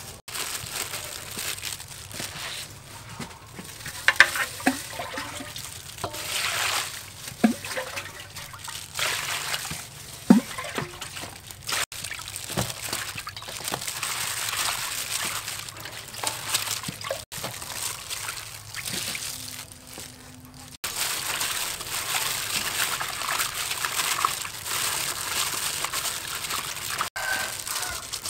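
Hands swishing leafy greens around in a stainless steel bowl of water: sloshing and trickling with occasional splashes and drips, breaking off abruptly a few times.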